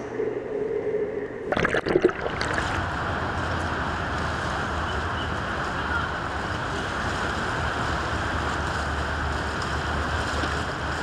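A few sharp splashy knocks about two seconds in, then a steady outdoor wash of bay water and wind along a concrete seawall.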